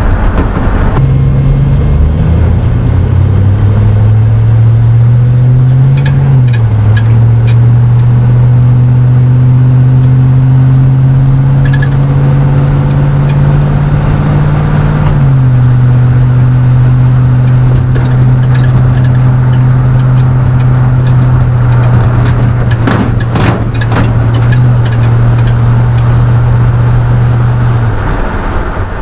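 The 5.3L LM7 V8 of a 1999 Chevrolet Silverado, running through a Cherry Bomb muffler and heard as a low exhaust drone inside the cab, pulls under steady acceleration. Its pitch climbs slowly and drops twice at upshifts, with a few light clicks in the middle, and it fades away near the end.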